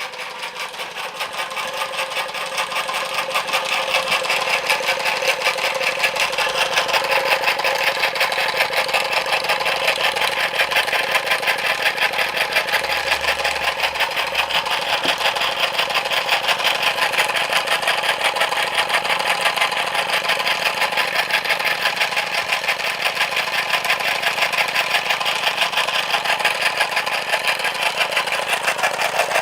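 A Cyldon 13/5 toy steam engine (Sydney S. Bird & Sons) running at speed under steam, with a rapid, even mechanical beat and rattling reduction gears. It keeps one steady speed because it has no regulator.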